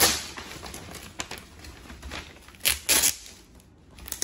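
Wrapping paper being torn and rustled off a gift box, with sharp loud rips at the start and twice close together about three seconds in.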